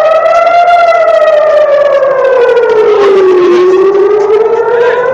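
Loud civil-defense air-raid siren wailing. Its pitch falls slowly to a low point about three and a half seconds in, then rises again. It is a rocket-attack warning.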